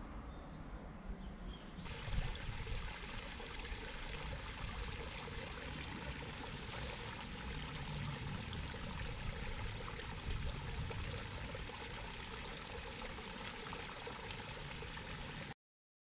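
Shallow stream running steadily, an even rushing water sound that gets fuller after a cut about two seconds in and stops abruptly near the end.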